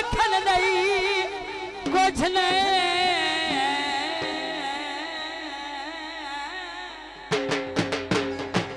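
A woman singing a Punjabi dhol geet, drawing out a long held note with vibrato that slowly fades. About seven seconds in, dhol drumming comes in with a quick beat.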